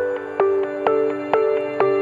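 Background music: a calm new-age tune of short pitched notes on a steady beat, about two strong notes a second with lighter ones between.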